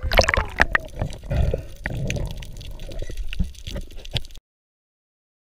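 Sea water splashing and gurgling around a diver's camera as it dips below the surface, with scattered knocks and clicks. The sound cuts off abruptly about four seconds in.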